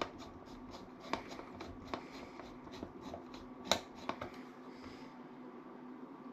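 Scattered light clicks and taps of hands handling a computer motherboard and its parts, the sharpest click a little past halfway, over a faint steady hum.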